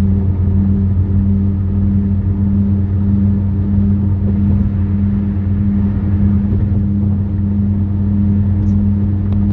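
A car's grinding noise while driving, a steady low drone with a hum around 100 and 200 Hz that holds level throughout. The owner finds it speed-dependent: silent at 40 mph and much louder at 45 mph, its cause not yet diagnosed.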